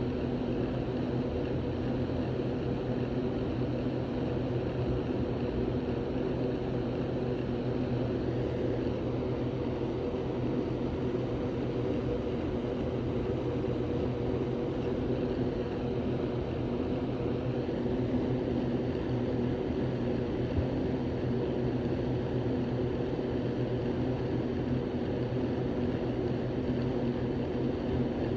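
A machine running steadily: a constant low drone with a steady hum in it that does not change.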